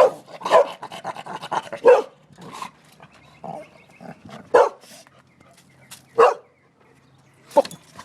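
Dogs barking: a quick run of barks in the first two seconds, then single barks spaced a second or more apart.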